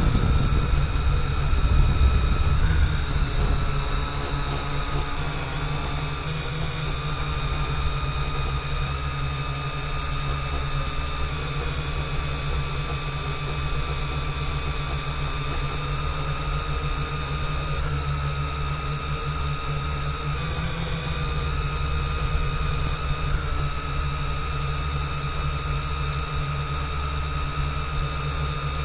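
Drone motors and propellers whining steadily, recorded by the action camera mounted on the drone, over a heavy low rumble of wind and vibration on the microphone. The whine dips and rises in pitch slightly a few times, and the rumble is louder during the first few seconds.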